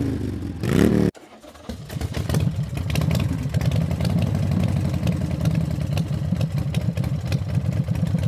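Motorcycle engine revving up in a rising blip that cuts off sharply about a second in, then running at idle with a steady low rumble.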